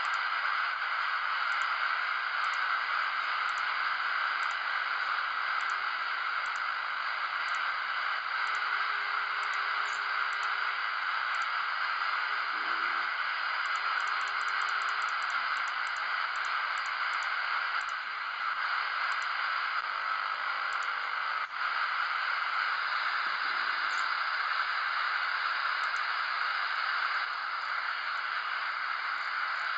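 Steady static hiss from a shortwave receiver (software-defined radio with an upconverter) tuned between stations, with no signal on the frequency. Faint brief tones come and go, and small ticks are scattered through it, with a quick run of them about halfway.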